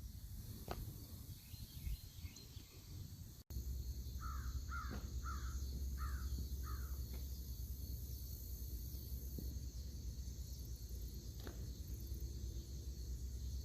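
A crow cawing five times in quick succession, over a steady low rumble.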